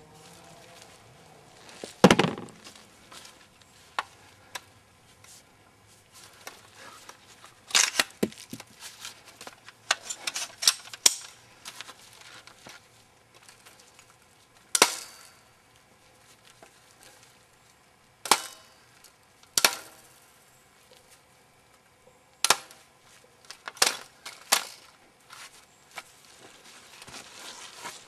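A dozen or so sharp cracks at irregular intervals, the loudest about two seconds in, several trailing a short echo, over a quiet background.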